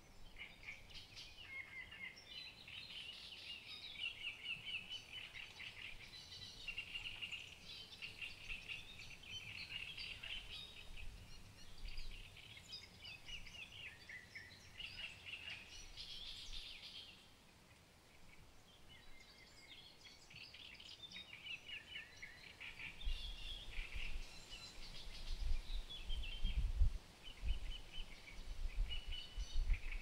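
Several songbirds sing overlapping phrases in a marshland dusk chorus, with a short lull a little past the middle. In the last quarter a low, gusty rumble of wind on the microphone comes in and grows louder than the birds.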